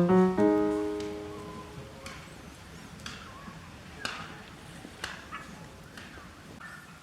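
Background piano music, a few notes ringing out and fading over the first second or two. Then faint, scattered crackles and snaps of a wood campfire, about one a second.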